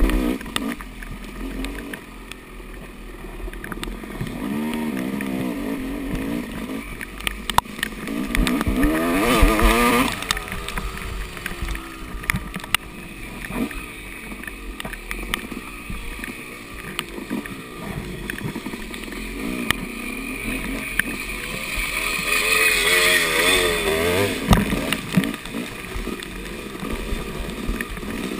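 Yamaha dirt bike engine ridden hard on a muddy trail, its pitch rising and falling with the throttle, with louder revving surges about a third of the way in and again later. Sharp clicks and knocks from the bike over rough ground are scattered throughout.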